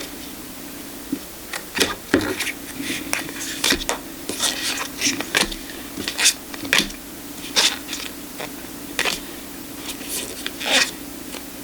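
Tarot cards being handled and leafed through by hand: an irregular string of short papery swishes, slides and taps as the stiff cards are pulled apart and laid down.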